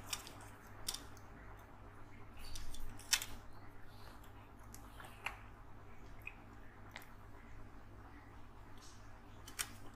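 Small plastic and metal clicks and taps of hands seating a replacement laptop cooling fan in an opened laptop chassis, with a louder burst of rustling ending in a sharp click about three seconds in.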